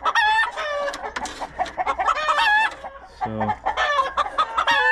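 Caged chickens squawking in a string of short, high-pitched calls, about five in a few seconds. They are bit noisy, agitated alarm calls from birds that get paranoid.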